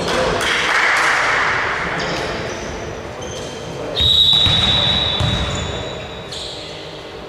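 Indoor ball game in a sports hall: noise of play and players with scattered ball knocks, then a referee's whistle blown in one long, steady blast about four seconds in, lasting over two seconds.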